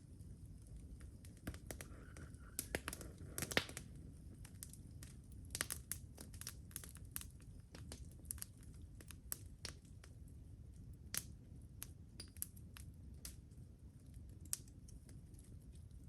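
Wood campfire burning, with irregular sharp crackles and pops, a cluster of louder ones about three seconds in.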